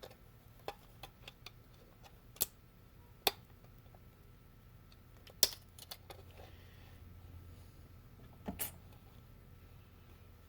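Scattered light clicks and taps, a few of them sharper, from handling small electronic parts: an RF coaxial connector and circuit board being turned over for a close look. A faint low hum runs underneath.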